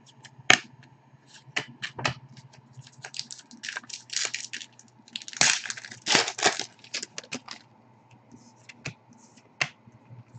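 Trading cards being handled and shuffled, with a foil card-pack wrapper crinkling: a run of irregular clicks and crackles, densest in the middle.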